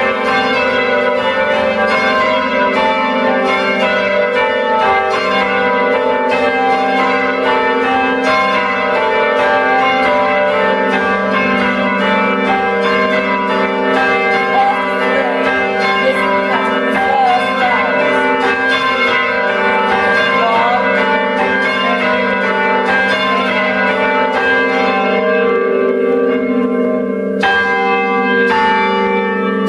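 Ring of four church bells cast by John Taylor of Loughborough in 1922, tenor in G, rung full-circle in change ringing, the strikes following one another in an even, steady rhythm.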